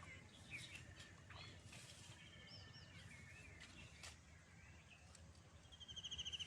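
Faint outdoor ambience of small birds chirping, with scattered short calls and a rapid trill that comes in about a second before the end.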